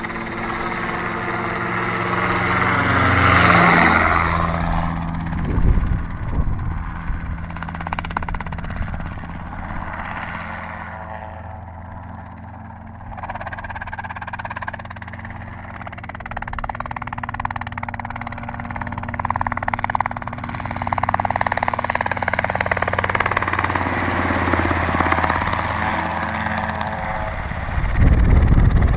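Robinson R22 helicopter flying overhead, the steady beat of its rotor and engine swelling and fading as it manoeuvres. It is loudest about three seconds in, and again near the end with a heavy low rotor beat as it comes in low and close.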